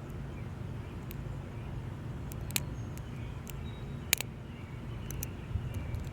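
Small metallic clicks from a hook pick and tension wrench working the security-pinned pin stacks of an Abus 34/55 padlock: a handful of scattered sharp ticks, the loudest about four seconds in, over a steady low hum.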